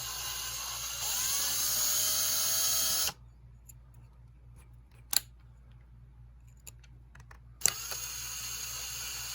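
Small electric drill driving a tiny thread tap into a diecast car part, running with a high whirr that rises in pitch about a second in and stops abruptly after about three seconds. A few light clicks follow, and a softer steady whirr starts again near the end.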